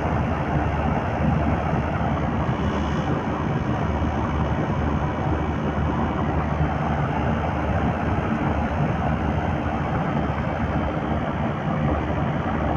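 Trane air-conditioning unit running with a steady, loud mechanical noise from its compressor, which the owner takes for a bad compressor.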